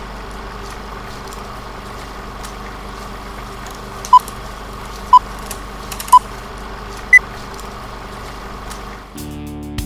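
Countdown beeps over a steady hiss and low hum: three short beeps a second apart, then a fourth, higher beep a second later.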